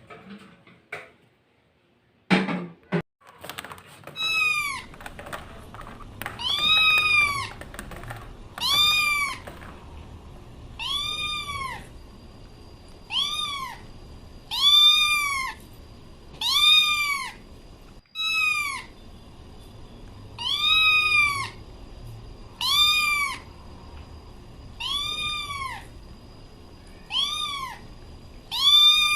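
Domestic cat meowing over and over, about one meow every two seconds, each call rising and then falling in pitch. A couple of knocks sound just before the meowing begins.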